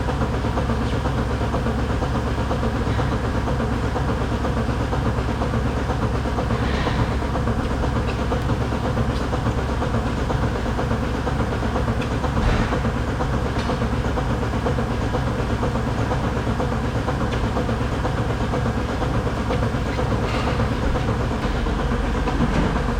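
Milking parlour equipment running: a steady mechanical hum from the vacuum pump and milking machines, with a few faint clanks.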